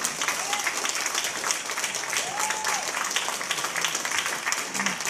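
Audience applauding at the end of a jazz song, a dense steady patter of many hands clapping. Two short cheers rise over it, one about half a second in and a longer one about two and a half seconds in.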